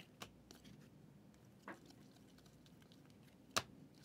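Faint clicks and ticks of trading cards being handled and flipped through, with a sharper click about three and a half seconds in.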